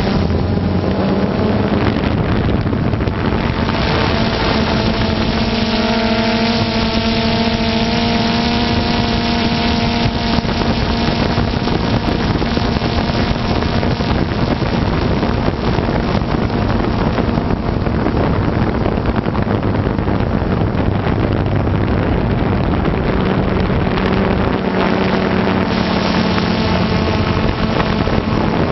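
Multirotor drone's motors and propellers buzzing steadily, with wind noise on the microphone; the higher motor tones shift in pitch between about five and ten seconds in.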